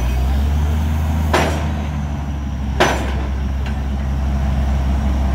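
Borewell drilling rig's engine running with a steady low drone, broken by two short hissing bursts about a second and a half apart.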